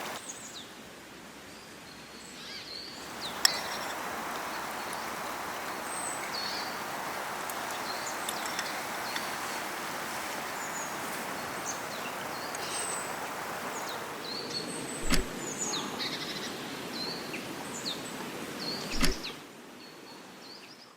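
Small birds chirping over a steady rushing noise, with a couple of short knocks near the end.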